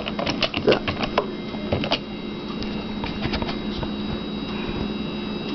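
Computer keyboard keys tapped in quick clicks for about the first two seconds, then a steady hum.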